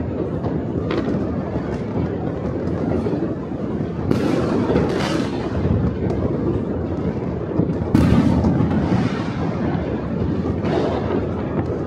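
Many fireworks exploding at a distance, blending into a continuous low rumble, with louder sharp bangs about four and eight seconds in and a few fainter cracks between.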